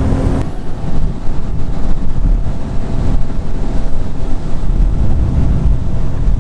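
Wind buffeting the microphone of a boat running across open water: a loud, uneven low rumble. A steady boat-engine hum is heard only for about the first half second.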